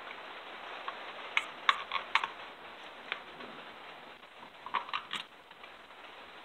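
Light clicks and taps of hands fitting small parts and bolts on a Husqvarna 562 chainsaw: a cluster of four sharp clicks about a second and a half in, a single one near three seconds, and three more near five seconds, over a steady hiss.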